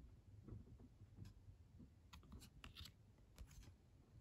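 Faint clicks and light rustling of baseball trading cards being flipped through by hand, with a few small sharp ticks in the middle.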